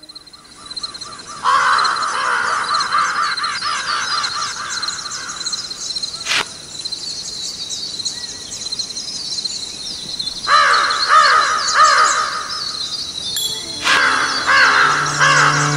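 Many birds calling: bursts of loud, rapid, harsh repeated calls over constant higher chirping. A single sharp click comes about six seconds in, and a low sustained musical drone comes in near the end.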